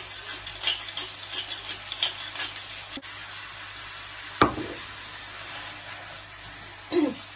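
Pork frying in a wok with a faint steady sizzle, under quick clicking and scraping in the first few seconds. A sharp, ringing clank comes about four and a half seconds in and is the loudest sound; a second clank follows near the end.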